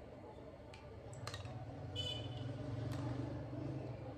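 A plastic spoon stirring aloe vera gel and rose water in a small container, clicking against its side a few times with one brief ringing clink, over a steady low hum.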